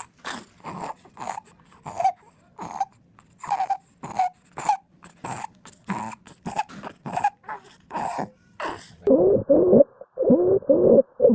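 Stridor: harsh, noisy breathing through a narrowed upper airway, the breath sounds coming quickly, about two a second. About nine seconds in a different recording takes over, louder, with a pitched whistling tone on each breath.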